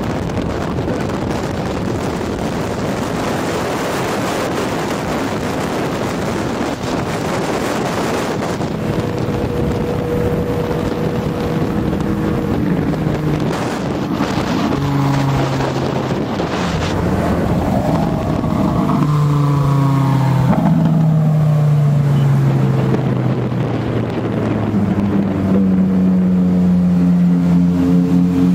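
Wind and road noise of cars driving at highway speed. From about halfway, car engine notes come through, their pitch stepping down and rising again as the cars change gear and speed. An engine note holds strong near the end.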